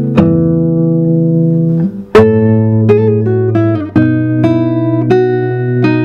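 Solo classical guitar playing plucked chords that ring on. It breaks off briefly, then a sharply struck chord comes in about two seconds in, and new chords follow near the end.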